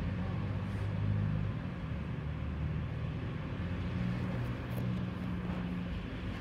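Tram running, a steady low hum and rumble with no sudden events.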